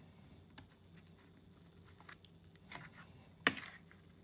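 A metal fork cutting through a sauced burrito on a plate: faint soft scrapes and small clicks, then one sharp click of the fork against the plate about three and a half seconds in.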